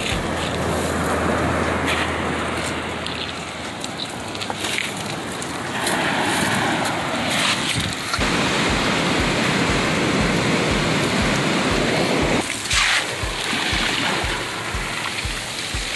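Surf washing over a pebble beach: a steady rushing hiss that swells about six seconds in and again briefly near the end.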